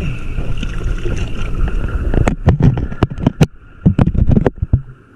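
Boat underway: a steady engine drone with a constant whine, broken by a quick run of sharp knocks and thumps from about two seconds in to near the end.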